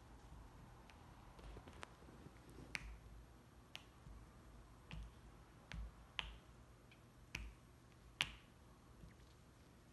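Faint, sharp clicks of a puppy's teeth on a chew-toy bone as it gnaws, coming at irregular intervals with the loudest one near the end.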